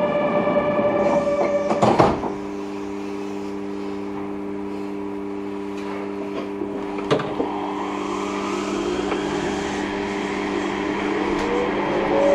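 Yurikamome rubber-tyred automated train standing at a station platform: a chime sounds for about two seconds, then a knock as the doors close. Its electrical equipment hums steadily, and near the end a whine rises in pitch as the train pulls away.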